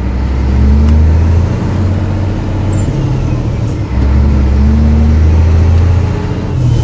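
Scania 124 360's inline-six diesel engine, heard from inside the cab, droning loudly on the engine brake as the truck is slowed through the gears. The drone drops away about a second and a half in and comes back strongly about four seconds in.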